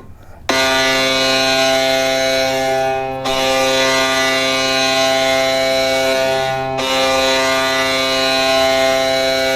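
Vegas Golden Knights' NHL arena goal horn sounding. A short blast cuts off just at the start, then after half a second a long, loud, steady horn blast holds on, dipping briefly about three and about seven seconds in.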